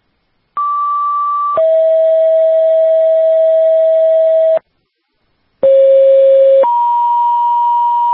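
Two-tone sequential paging tones over a fire and EMS dispatch radio channel, heard through a scanner feed. A short higher tone steps down to a longer lower tone. After about a second's pause, a short low tone steps up to a longer higher tone. This is the tone-out that sets off the responding agencies' pagers ahead of the voice dispatch.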